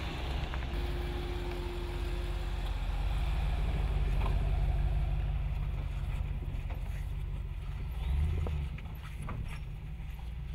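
Ram 2500 pickup's 6.4-litre HEMI V8 running at low revs as the truck drives past and crawls over a rocky trail, a steady low rumble that is loudest around the middle with a short swell about eight seconds in. Stones crack and tick under the tyres in the later seconds.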